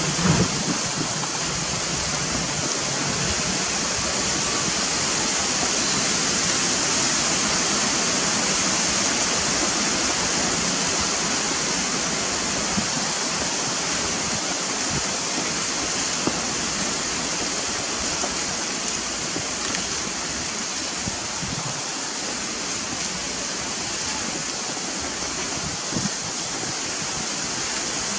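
Steady outdoor hiss, strongest in the high register, with a couple of faint knocks, one at the very start and one about 26 seconds in.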